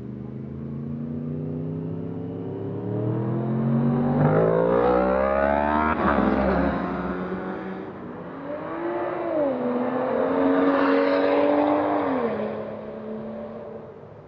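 A motorcycle engine grows louder and climbs in pitch as it approaches, then drops sharply as it passes about six seconds in. A second vehicle, a car, follows, its engine note stepping down twice before fading near the end.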